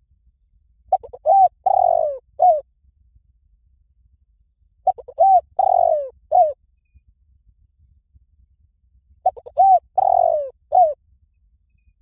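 Spotted dove song, a decoy call for luring spotted doves. Three near-identical coo phrases come about four seconds apart, each a few short coos, a long falling coo and a short closing note.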